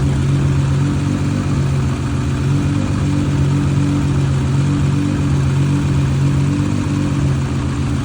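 Nissan GT-R R35's twin-turbo V6 idling steadily in park, with a tapping or miss out of the exhaust that the owner calls its first weird noise in 26,000 miles.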